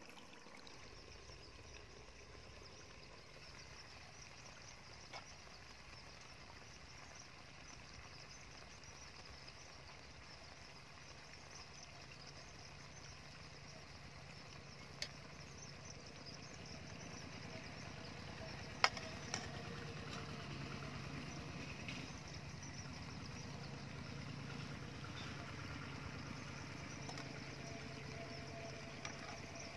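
Steady low hum of a portable gas stove burning under an aluminium wok of cooking chicken, growing a little louder past the middle. A few sharp clicks, the loudest about 19 seconds in.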